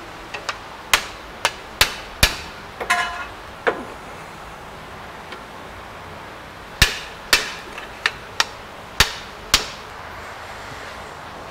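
Hand hammer striking steel at a car's front wheel hub to drive the CV axle shaft out of the hub. There are two runs of sharp metallic blows: about eight in the first four seconds, one ringing briefly, then a pause of about three seconds, then about seven more in quicker succession.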